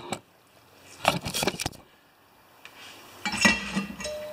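Metal clinking and clattering in two short bursts, about a second in and again near the end: a steel mower blade and hand tools being handled and set down.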